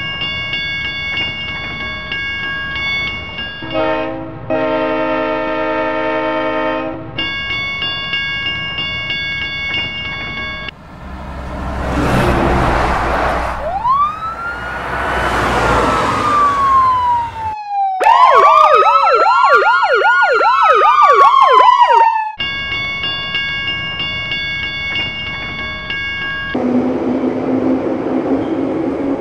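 Emergency-vehicle siren: one slow wail that rises and then falls away, followed by a louder, fast up-and-down wail lasting about four seconds. Before and after it come steady held electronic tones.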